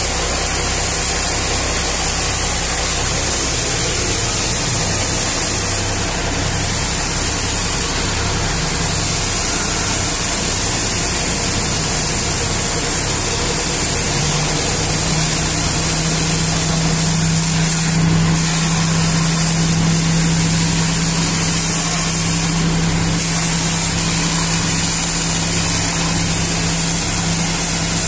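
High-pressure water jet from a wash hose blasting against a haul truck's tyre and undercarriage, a steady hiss and splash, over a steadily running engine. A low hum comes in about halfway and holds.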